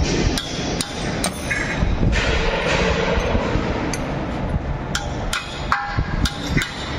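Hammer blows on the metal of a Marflex cargo pump being dismantled: a few sharp strikes in the first second or so, then a quicker run of strikes near the end, over steady workshop background noise.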